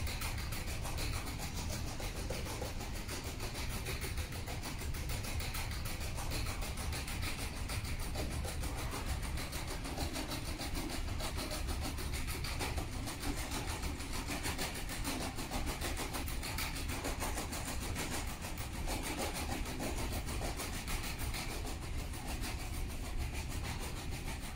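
Small quadruped robot (a Mini Cheetah) walking, its leg motors giving a steady mechanical whirring and rubbing noise without a break.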